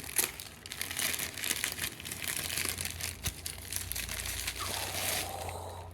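Packaging crinkling and rustling in irregular crackles as a small collectible figure is unwrapped by hand.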